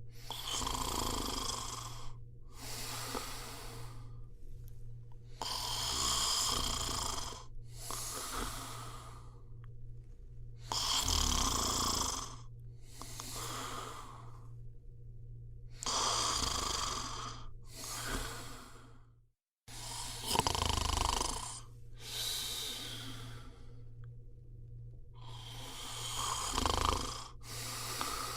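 A person snoring in slow, regular breaths. Each breath is a rasping pull in followed by a rasping push out, and the cycle repeats about every five seconds.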